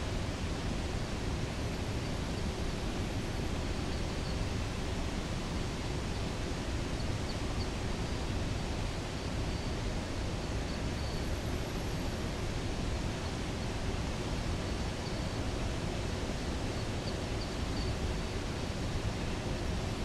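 Steady, even rush of flowing water with no breaks, with faint high chirps now and then.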